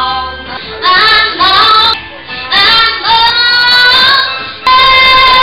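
A man singing into a handheld microphone over a PA, in short gliding phrases, then holding one long steady note from about five seconds in.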